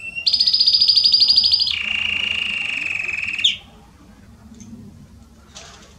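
Belgian canary singing: a fast trill of rapidly repeated high notes, switching to a lower trill about two seconds in and breaking off with a short upward flick about three and a half seconds in.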